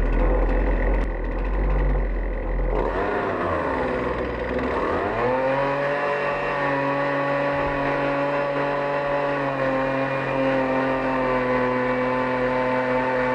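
Small, old chainsaw running at full throttle on a homemade log-milling rig while cutting a log. About three seconds in, its pitch wavers up and down, then settles and holds steady.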